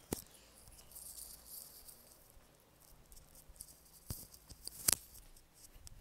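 Faint rustling handling noise from a wired earphone cable rubbing against clothing, with a few sharp clicks and knocks, the loudest about five seconds in.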